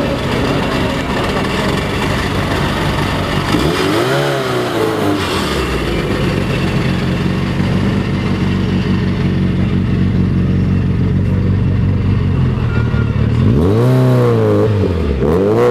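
Tuned, turbocharged four-cylinder engine of a Lancia Delta HF idling through a decatted exhaust. It is revved once about four seconds in and twice near the end, the pitch rising and falling with each throttle blip.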